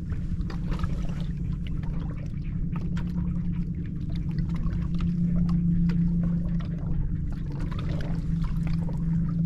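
Water trickling and splashing over a steady low motor hum on a bass boat.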